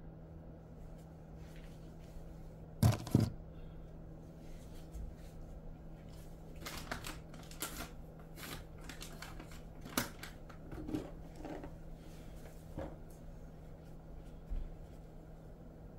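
Scattered light handling clicks and rustles, with two sharp knocks close together about three seconds in, over a steady low hum.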